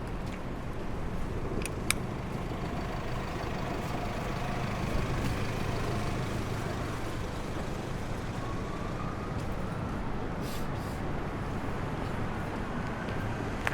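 City street ambience: a steady low rumble of traffic, with two sharp clicks close together about two seconds in.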